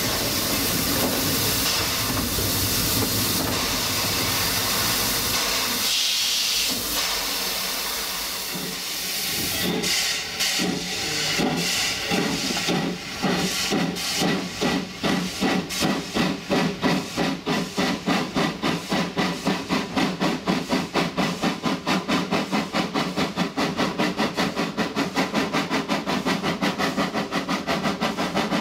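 LB&SCR A1X Terrier tank locomotive: steady steam hiss for the first several seconds. About ten seconds in the chimney exhaust beats begin, then quicken into a regular fast chuff of about four beats a second as the engine works.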